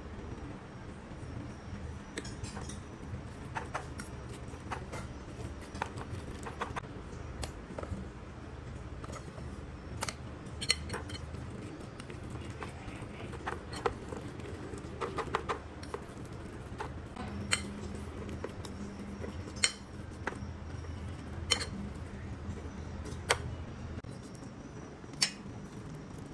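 Metal fork clinking and scraping against a ceramic bowl while stirring a minced pork mixture, with sharp clinks about every two seconds in the second half, over a steady low hum.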